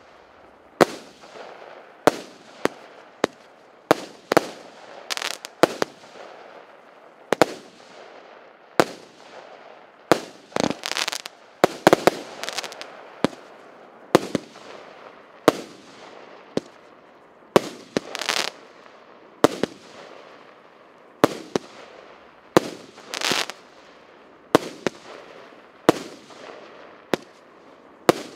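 66-shot consumer fireworks cake (PC9040 'Wedding Cake', 0.8 to 1.2 inch shots) firing one shot after another, a sharp bang about every second, some in quick pairs. Several bursts trail off in a longer rush of noise.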